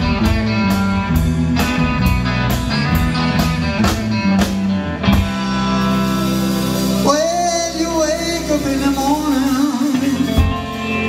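Live rock band with electric guitars, bass and drums playing a steady beat, then stopping on a held chord while the singer holds a long wavering note. The full band kicks back in near the end.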